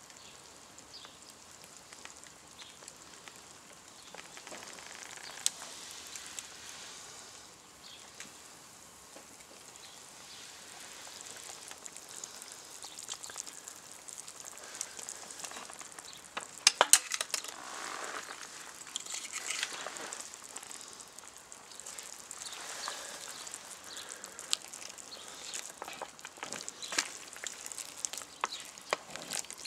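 Pieces of wild boar meat sizzling in a steaming cast-iron cauldron over a wood fire, a steady hiss with scattered pops and crackles. A quick run of loud pops comes a little past the middle.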